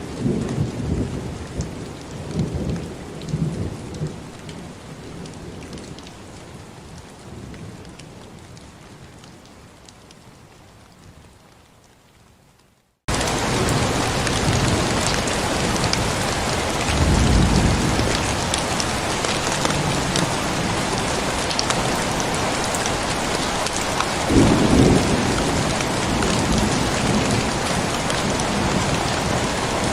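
Rainstorm with thunder. Rain and a rumble of thunder fade away over the first dozen seconds to a brief silence, then heavy steady rain cuts back in abruptly about 13 seconds in, with low thunder rumbles a few seconds later and again near 25 seconds.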